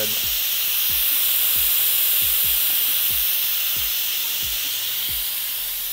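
Instant Pot pressure cooker venting steam through its release valve during a quick release after cooking: a loud, steady hiss that eases slightly over the last few seconds.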